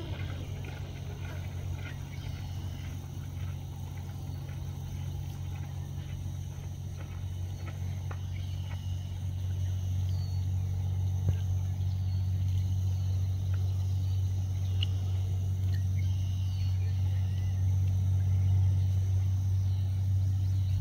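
Low, steady hum of a motor vehicle's engine, growing louder from about halfway through, with a few faint bird chirps above it.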